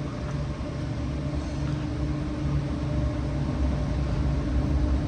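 Amtrak P42DC diesel-electric locomotive approaching while crossing over to another track, its diesel engine giving a deep steady rumble with a steady hum above it, slowly growing louder.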